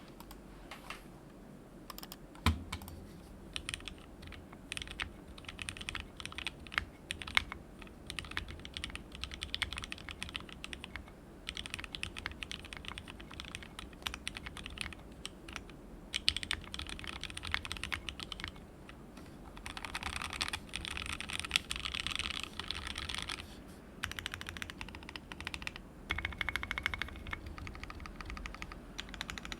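Typing on a mechanical keyboard with lubed, filmed 43 Studio Toy switches soldered plateless onto a WT60-D Weirdflex PCB in a resin case, with ABS Cherry-profile keycaps: a steady patter of keystrokes. There is one louder, deeper thump about two and a half seconds in, and faster runs of typing about two-thirds of the way through and near the end.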